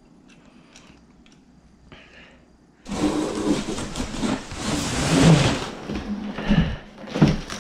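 Hand rummaging in a cardboard box full of foam packing peanuts: loud rustling and scraping that starts suddenly about three seconds in, followed by scattered rustles and clicks. The first three seconds are quiet apart from a few faint clicks.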